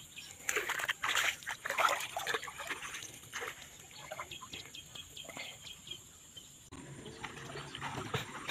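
Water splashing and sloshing around a person wading waist-deep while handling a fishing net. The splashes are strongest in the first few seconds, then give way to softer sloshing.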